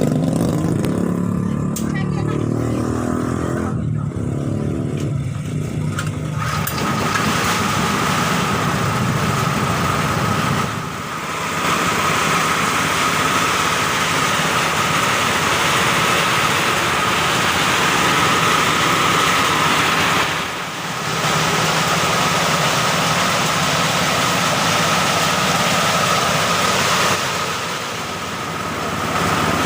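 Small engine-driven machine running, most likely the homemade rice thresher: a lower, uneven engine hum for about six seconds, then a steadier, louder run with a constant high whine, dipping briefly a few times.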